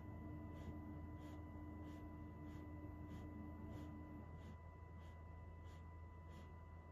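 Quiet indoor room tone: a steady low electrical hum with faint steady tones, one of which stops about four seconds in. Over it runs soft, even ticking, about one and a half ticks a second.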